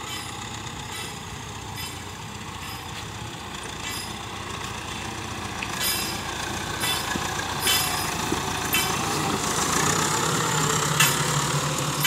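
Ford 7740 tractor's diesel engine working under load as it pulls a three-disc plough through hard, dry soil. The engine grows louder as the tractor comes up close. Sharp clinks sound about once a second.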